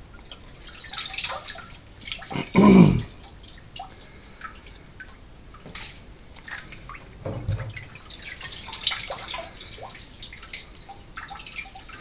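Wet, washed cod fish maw being handled and lifted out of a top-loading washing machine's perforated stainless-steel drum: water dripping, with small wet squelches and knocks against the metal. One louder, lower sound comes about three seconds in.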